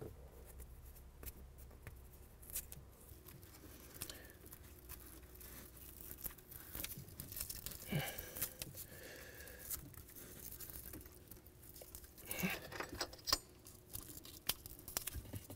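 Faint rustling and scattered light clicks of car-radio wiring being bundled together and pushed into the dashboard behind the head unit, with a couple of slightly louder knocks.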